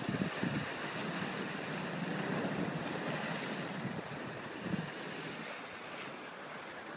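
Ocean waves washing against a sea wall, a steady surf wash with brief louder surges of water near the start and again about four and a half seconds in.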